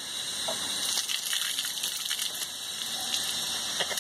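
Water pouring steadily from a fish-cleaning table's drain and splashing on wet ground.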